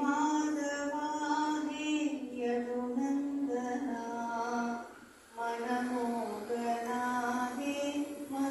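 A woman singing slow, long-held notes, with a short break for breath about five seconds in.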